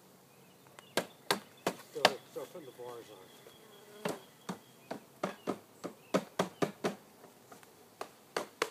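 Honeybees buzzing close by, with a run of sharp taps and knocks, about two a second, as wooden hive parts and the bee package are handled.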